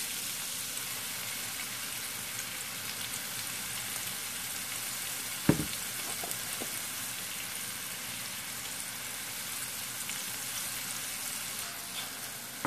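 Chopped mushrooms and onions sizzling steadily in olive oil and butter in a frying pan, with a single sharp knock about five and a half seconds in.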